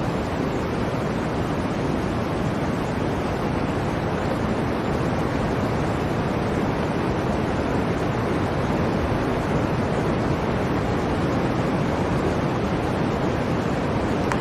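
Blizzard wind blowing as a steady, unbroken rush with no separate gusts or events.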